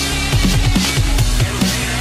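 Electronic dance music with a fast, pounding beat of deep drum hits.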